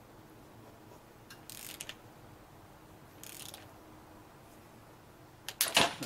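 Ratcheting torque wrench with a socket on a suspension fork's 26 mm top nut, tightening it to 10 newton metres. Two short bursts of ratchet clicking come first, then a louder clatter of sharp clacks near the end as the wrench comes off the nut.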